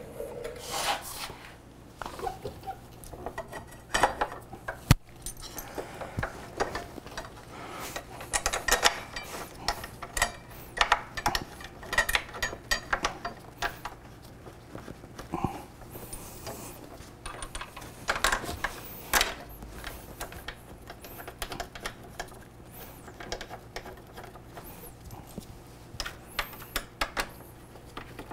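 Irregular metallic clicks, clinks and scrapes of a Brembo motorcycle brake caliper being handled and fitted back over the front brake disc onto the fork mount, with its mounting bolts being started by hand.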